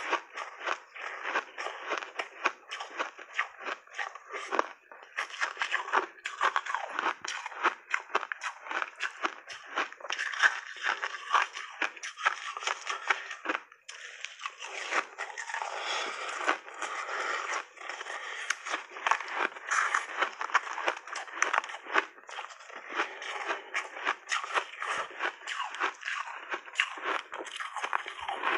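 Close-miked crunching and chewing of a block of compacted white snow ice dipped in berry juice: dense, irregular crackles as the ice is bitten and ground between the teeth.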